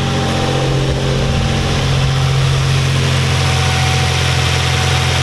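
2007 Infiniti G35's 3.5-litre V6 idling steadily, with no knock to be heard at the moment, though low oil had left the owner fearing rod knock.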